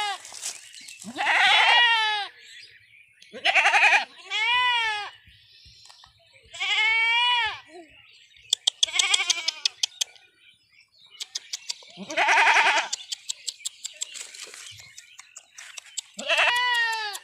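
An animal bleating: about eight drawn-out, high calls, each rising and falling in pitch, spaced a second or two apart. Runs of quick sharp clicks come between some of the calls, in the middle and near the end.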